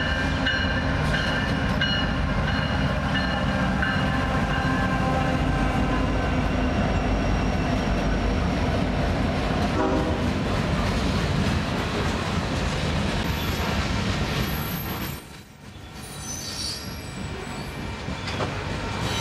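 Union Pacific freight train passing at speed behind a GE ES44AC and two EMD SD70ACE diesel locomotives. The locomotive air horn sounds at the start and fades as the units go by. A steady rumble and clatter of refrigerated boxcars rolling past follows, briefly dropping away about fifteen seconds in.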